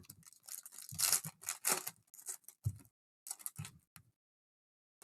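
Foil trading-card pack wrappers being torn open and crinkled in the hands, with a few soft knocks of handling; it cuts off abruptly about four seconds in.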